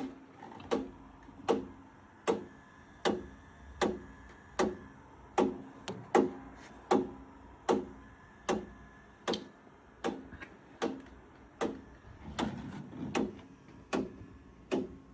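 Bowflex M6 Max Trainer knocking in a steady rhythm, roughly one sharp knock every three-quarters of a second, a few of them doubled. The knock is a fault noise in the machine.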